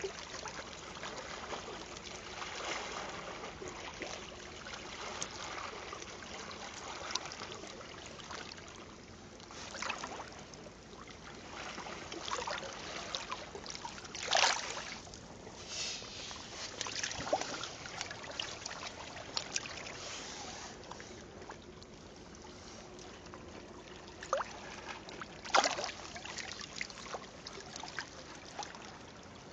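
Shallow seawater lapping and sloshing around a hand holding a European sea bass by the jaw in the water to revive it for release, with sharper splashes about midway and again near the end.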